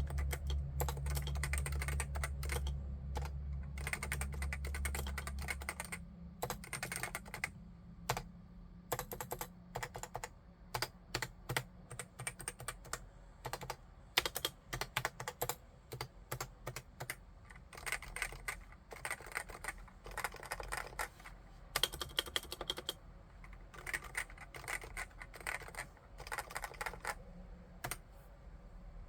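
Typing on a Realforce AEAX01 RGB keyboard with Topre electrostatic capacitive switches, in irregular runs of keystrokes with short pauses between them. A steady low hum sits under the typing and stops about six seconds in.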